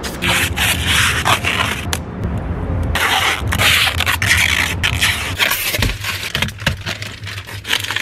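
Protective plastic film being peeled off a new car and crumpled in the hands, crinkling and rustling in repeated bursts, with a short lull about two seconds in.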